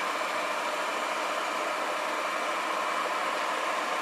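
Ecovacs Deebot T9+ robot vacuum running its suction fan at the start of a cleaning run: a steady hiss with a faint steady whine.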